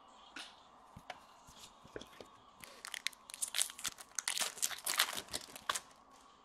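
A few light clicks, then about three seconds of dense crinkling and crackling as the foil wrapper of a hockey card pack is torn open.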